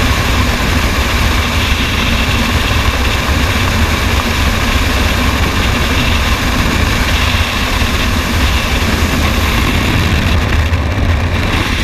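Loud, steady rush of freefall wind over a skydiver's helmet-mounted camera microphone.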